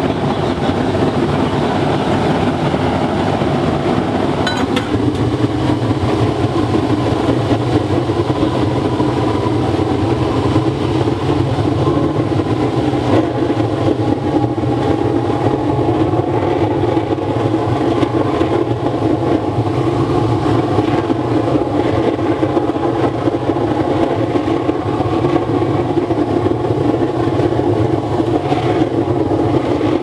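A 300 kW waste-oil burner running turned down low, a steady loud noise of blown air and burning oil flame. It grows deeper and fuller about five seconds in.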